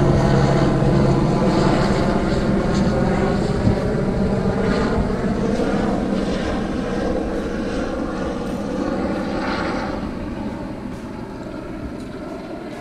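Propeller aircraft flying over, its engine drone loudest at the start and fading steadily as it moves away.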